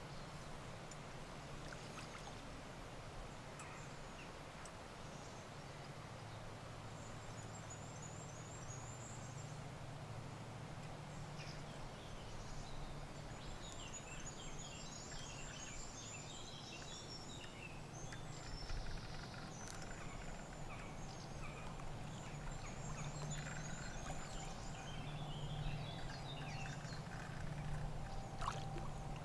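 Lakeside ambience: small birds chirping and singing in short repeated phrases from about seven seconds in, over a steady low hum.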